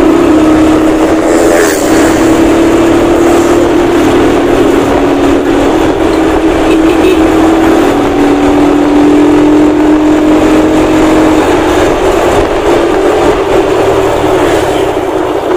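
Diesel engine of a Luragung bumel bus droning loudly through its exhaust, holding a near-steady note whose pitch sags slightly midway and climbs again near the end.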